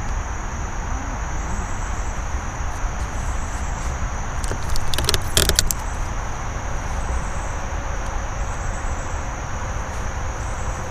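A steady chorus of night insects over a constant low rumble, with a short burst of rapid clicking about five seconds in.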